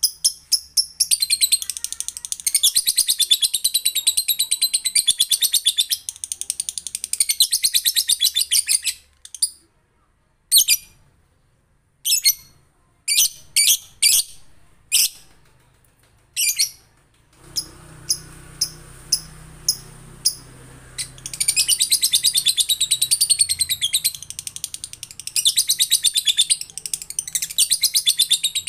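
Male lovebird (Agapornis) singing its long 'ngekek' chatter: a very rapid, high-pitched trill held for several seconds at a time. The trill breaks off partway through into a string of single sharp chirps, then starts again near the end.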